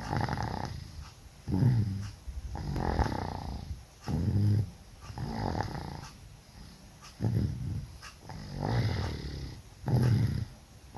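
A sleeping person snoring loudly, a rough snore on roughly every breath in and out, one about every second and a half. The uploader puts the loud snoring down to flu and a cough.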